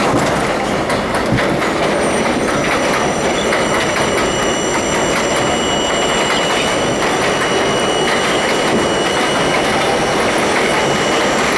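Budd-built R32 subway train running along the track, heard from inside the front car: a steady loud rumble of wheels on rail with clickety-clack from the rail joints and a few thin, steady high tones over it.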